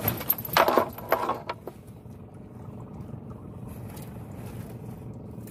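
Metal chain and frame of a fishing net clattering and clinking as the net is pulled over the boat's side, loudest about a second in, then fading. A steady low hum of the boat's engine runs underneath.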